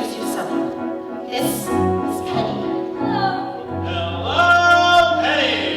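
Live stage-musical singing with instrumental accompaniment over a steady bass note; a long note is held about four seconds in, the loudest moment.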